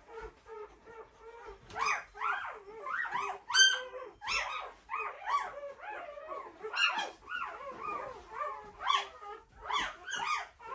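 Week-old pointer puppies crying, a steady stream of short, high-pitched squeals and whines, one after another. The sharpest, loudest squeal comes about three and a half seconds in. Newborn pups cry like this when handled or moved away from their litter and mother.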